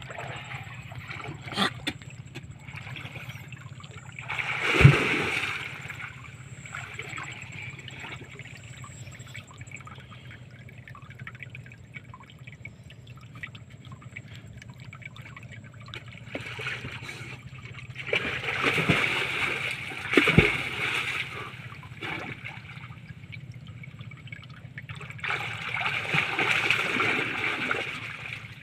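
Water splashing and sloshing against a small wooden boat's hull in three bouts, each with a sharp thump, over a steady low hum.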